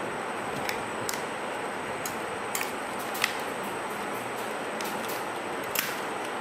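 A handful of small, sharp, irregular clicks from the freshly refitted lens mount of a Canon DSLR body being handled and checked, the loudest about three seconds in, over a steady hiss.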